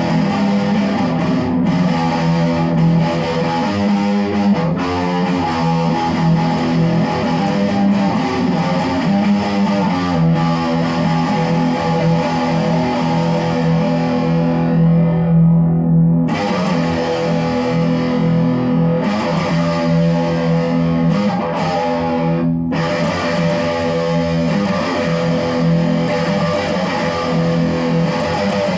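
Electric guitar played through effects, letting notes and chords ring out and sustain, changing every second or two. The high end thins out briefly about halfway through.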